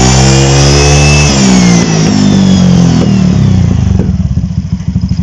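Honda Beat scooter's single-cylinder engine revved, with add-on metal plates beside the cooling fan giving a high supercharger-like whine that rises with the revs. A little over a second in the throttle closes and the whine falls away as the engine drops back to a steady pulsing idle.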